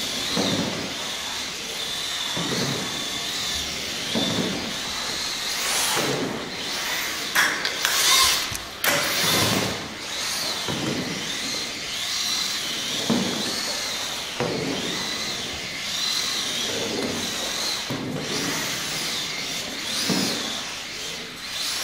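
Scaled model car's electric drive motor whining as the car drifts on a parquet floor under automatic control; the whine wavers up and down in pitch, and the sound swells and fades about every two seconds as the car circles. A few louder bursts of noise come between about six and nine seconds in.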